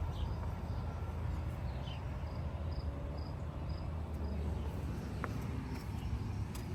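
Outdoor garden ambience: a steady low rumble, with a faint high chirp repeating about twice a second and a few short bird calls.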